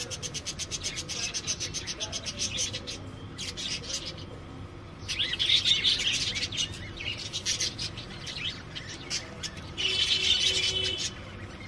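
Pet budgerigars chattering and chirping: a fast run of short chirps at the start, then louder bursts of chatter about five seconds in and again near the end.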